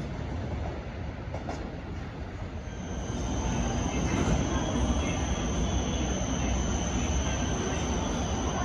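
Freight train running past with a steady rumble that grows louder about three seconds in. At the same moment a high, steady wheel squeal sets in and holds.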